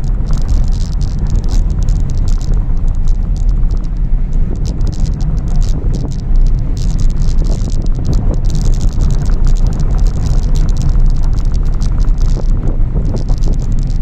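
Car driving on a dirt and gravel track, heard from inside the cabin: a steady low rumble of tyres and engine with continuous crackling of gravel under the tyres.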